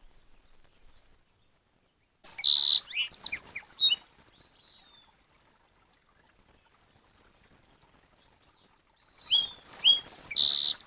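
A songbird singing two bursts of quick, varied chirps and whistles, one about two seconds in and one near the end, each starting and stopping abruptly. A single softer call follows the first burst.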